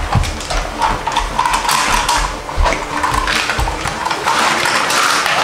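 Toys being handled: a run of clicks and knocks over a rattling, mechanical whir.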